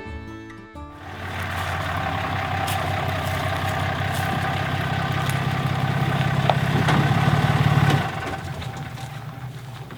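A truck's engine running steadily, growing a little louder, then dropping away sharply about eight seconds in.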